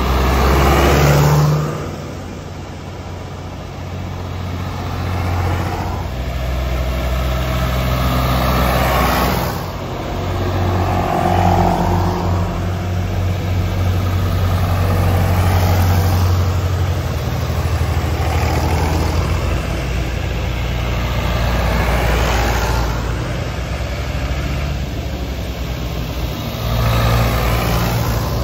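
A string of tractors driving past one after another. Each diesel engine swells as it comes close and fades as it moves on, and a new one follows every few seconds.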